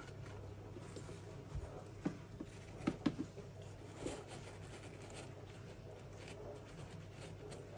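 Faint clicks and taps of a glass terrarium's plastic-framed mesh lid being pressed down and latched shut: a short cluster of clicks about two to three seconds in and one more about four seconds in.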